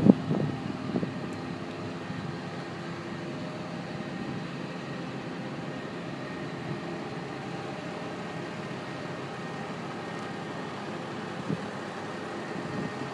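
Steady hum of a car in motion, heard from inside it: engine and road noise with a faint, even drone. A short knock comes right at the start.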